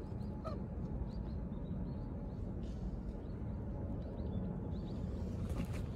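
Outdoor ambience: a steady low rumble with many short, high chirps of small birds scattered throughout.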